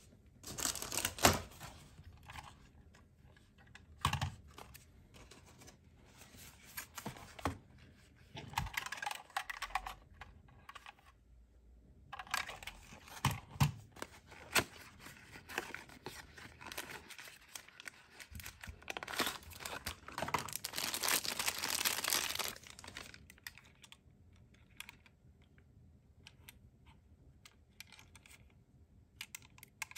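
Hands unpacking a small Tomica die-cast toy ambulance: plastic wrapping crinkling and a cardboard box being opened, with scattered small clicks and knocks as the toys are handled. There are longer stretches of rustling in the middle.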